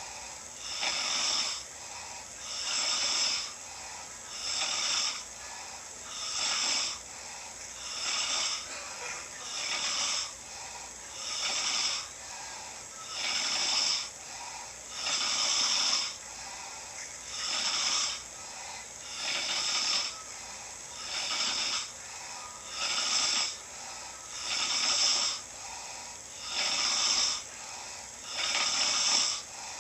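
A sleeping person snoring steadily, one snore about every two seconds.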